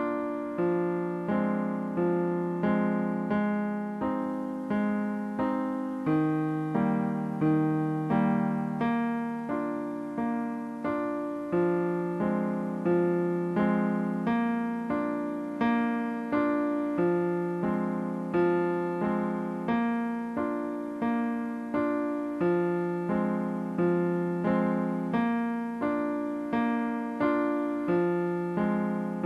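Background piano music: an electric-piano keyboard plays a steady, unhurried run of single notes, about one and a half a second, each fading before the next, over a repeating lower line.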